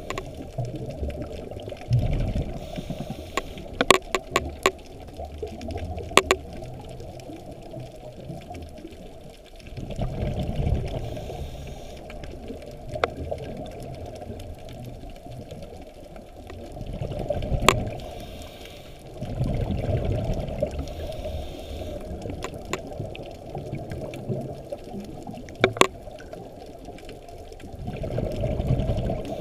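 Scuba divers' regulator exhaust bubbling underwater, coming in swells every several seconds as breaths are let out, heard muffled and low. A few sharp clicks sound at intervals.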